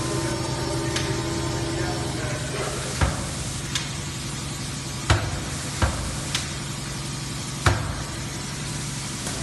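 Factory machinery running with a steady low hum and hiss, broken by a string of sharp mechanical clacks, about six of them, between roughly three and eight seconds in.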